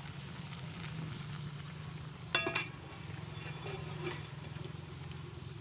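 A pot of malunggay (moringa) leaves boiling in water, a steady bubbling. About two and a half seconds in there is a single sharp clink with a short ringing tone.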